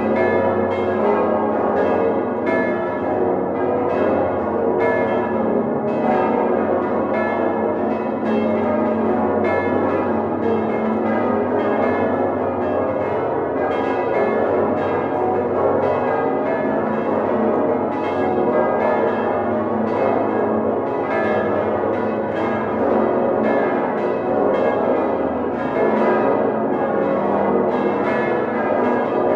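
Full peal of the Domtoren's large swinging church bells, hand-rung and heard from inside the bell chamber: many bells striking in an overlapping, irregular rhythm. Several strikes a second ring into one another over a deep hum, with no pause.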